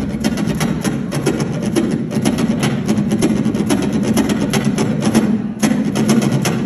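Acoustic guitar strummed hard in a fast, steady rhythm, about five or six strokes a second, with a short break a little over five seconds in.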